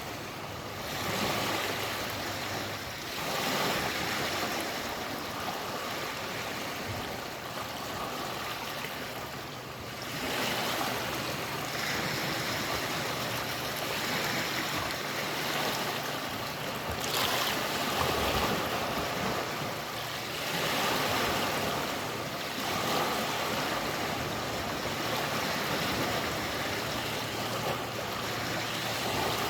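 Lake water washing and lapping, a steady rush that swells and eases irregularly every few seconds.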